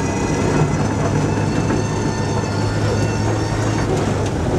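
Ford Escort rally car heard from inside the cabin at speed, its engine running steadily under load over constant road and tyre noise.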